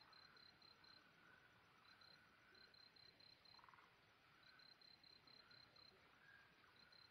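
Faint night chorus of calling insects: a cricket chirps in trains of quick, high, even pulses, about six a second, with short pauses between trains, over fainter, lower calls.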